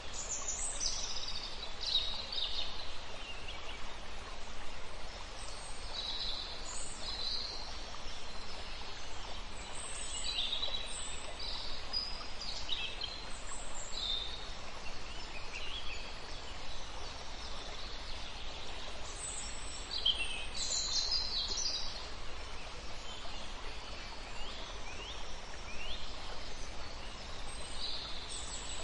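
Birds chirping and calling again and again over a steady outdoor background hiss.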